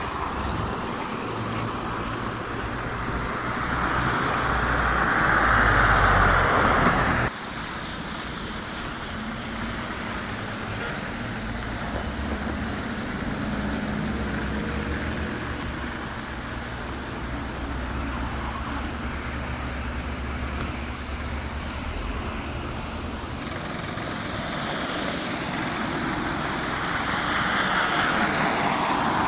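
Road traffic: cars and trucks driving past on a snowy street. A vehicle passes close, growing louder until about seven seconds in, where the sound cuts off suddenly. After that comes a steadier traffic rumble, which swells again near the end as more vehicles pass.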